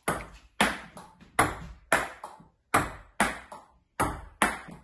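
Table tennis rally of forehand drives: a plastic ball clicks sharply and rhythmically off the bats and the table, nearly three strikes a second, with louder and softer strikes alternating.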